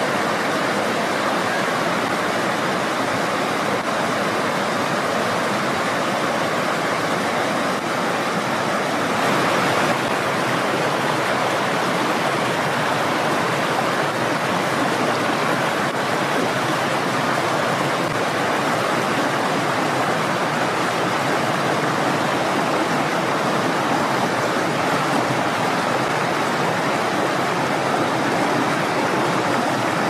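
Mountain stream rushing over rocks: a steady, unbroken wash of flowing water.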